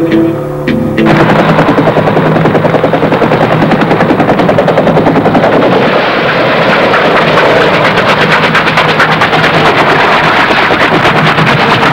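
Guitar music is cut off about a second in by a UH-1 'Huey' helicopter passing close, its rotor beating rapidly and steadily.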